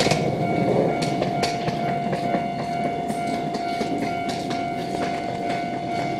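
Electric commuter train running away along the track, a steady rumble with wheels clicking over rail joints and a constant high whine, easing off slightly.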